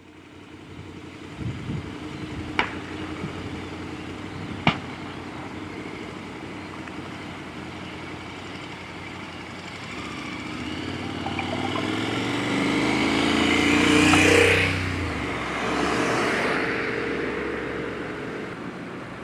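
A Scania lorry burning, with a steady noise of the fire and two sharp pops about three and five seconds in. From about ten seconds in, vehicles pass on the road, the loudest going by about fourteen seconds in.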